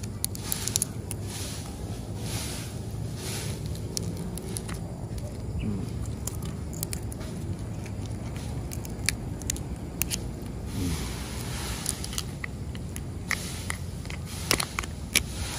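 A giant freshwater prawn's shell being peeled off by hand: scattered small cracks, clicks and crinkling as the shell segments come away, over a steady low background hum.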